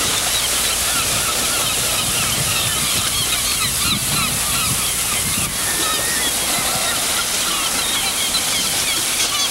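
A seabird colony calling: many short calls overlap constantly over a steady wash of background noise.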